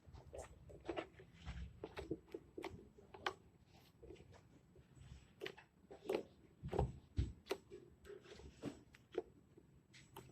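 Homemade glitter slime being handled and pressed into a plastic container: faint, irregular sticky clicks and small pops.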